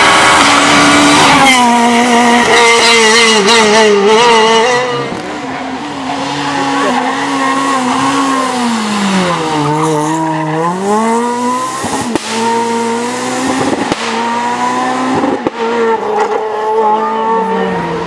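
Renault Clio R3 rally cars' 2.0-litre four-cylinder engines at full throttle, revving high through gear changes, with the pitch falling and climbing again about ten seconds in. Tyres squeal as the cars slide through corners, and a few sharp cracks come late on.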